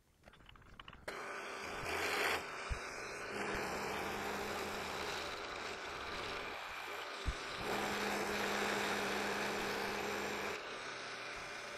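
Precision Matthews PM-727M milling machine with its spindle running, an end mill taking a cut across the end of a metal block. The cutting noise starts about a second in, and a steady low hum joins it twice.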